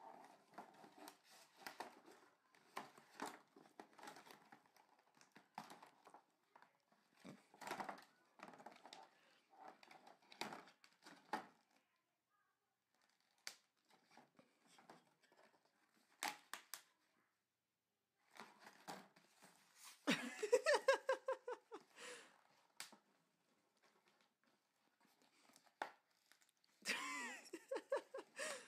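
Doll packaging being crinkled and torn as the box is opened, in a run of rustles and clicks for about the first twelve seconds, then only the odd click. Twice later, about twenty and twenty-seven seconds in, comes a short high, wavering voice-like sound, the loudest thing here.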